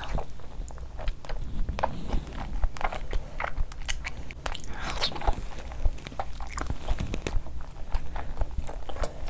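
Close-miked wet chewing of a large mouthful of soft fufu dough soaked in curry gravy, with irregular lip smacks and sticky mouth clicks.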